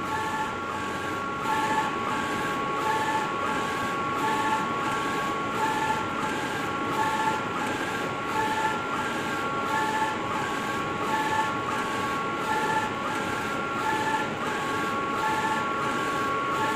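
NoCai UV flatbed printer running a print pass, its print head carriage sweeping back and forth. There is a steady whine over fan noise, with a second tone that switches between high and low in a regular rhythm of a little over a second.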